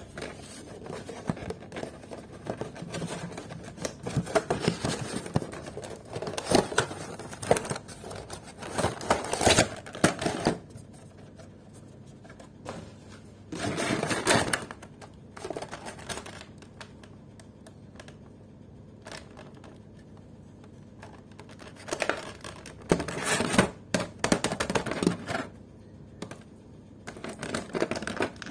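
Cardboard toy packaging and a thin clear plastic blister tray being handled: scraping, crinkling and clicking in irregular bursts with quieter pauses between them.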